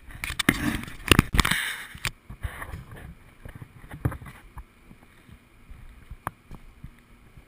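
Rustling and knocking handling noise close to the microphone for about the first two seconds, then a few scattered sharp clicks and knocks.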